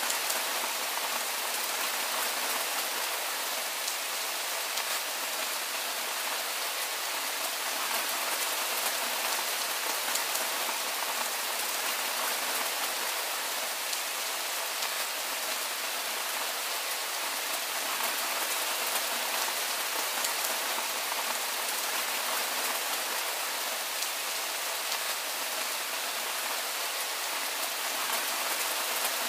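Steady soft rain falling: an even hiss of rainfall with faint scattered drop ticks.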